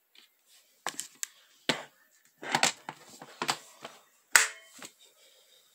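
Sharp plastic knocks and clicks as the parts of a Black & Decker upright vacuum are handled, about seven separate strikes, the loudest about four and a half seconds in. The vacuum's motor is not running.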